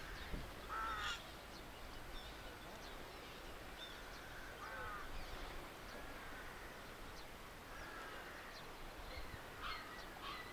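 Faint birds calling over a quiet outdoor background: a scatter of short calls, one every second or two.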